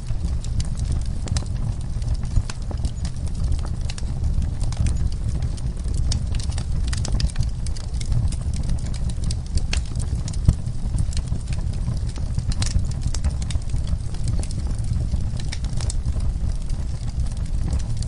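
Wood fire in a fireplace, the logs crackling and popping irregularly over a steady low rumble, with one sharper pop about halfway through.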